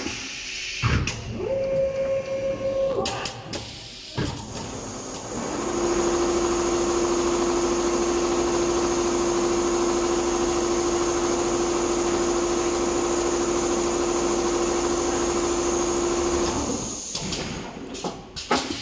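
Richpeace multihead computerized leather sewing machine running. In the first few seconds there are short stop-start runs, one with a motor tone that rises and then holds. Then comes about ten seconds of steady machine stitching with a constant hum, which stops a couple of seconds before the end.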